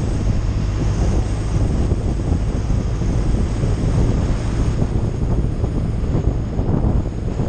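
Wind rushing over the microphone of a touring motorcycle at road speed, a steady loud buffeting with the bike's engine running underneath.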